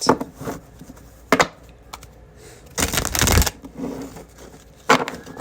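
A deck of tarot cards being shuffled and handled: a few sharp taps and a short, louder rustling burst about three seconds in.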